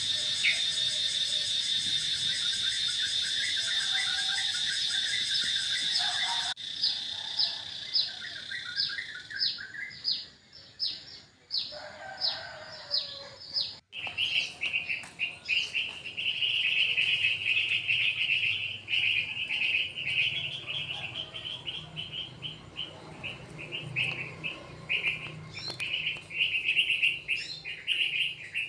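Birds chirping and calling steadily, with a stretch of quick, falling chirps in the middle; the sound changes abruptly twice.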